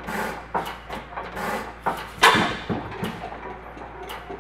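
International Harvester 10 hp Famous hit-and-miss stationary engine running, with a quick string of sharp firing knocks about half a second apart; the loudest comes a little over two seconds in.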